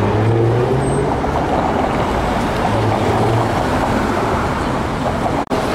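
City street traffic noise: a steady rush with a low hum that comes and goes, around a streetcar standing at a stop. The sound cuts out for an instant near the end.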